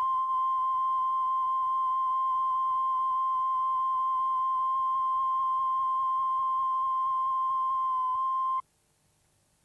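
1 kHz line-up test tone from a videotape's colour-bars leader: one steady high beep with a slight waver, cutting off abruptly about eight and a half seconds in and leaving faint tape hiss.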